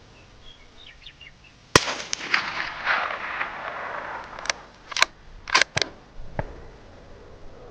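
A single shot from a suppressed Ruger American Gen 2 .308 bolt-action rifle, fitted with a SilencerCo Omega 300 suppressor, a little under two seconds in, with a noisy tail afterwards. Several sharp metallic clicks follow between about four and a half and six and a half seconds in, as the bolt is worked.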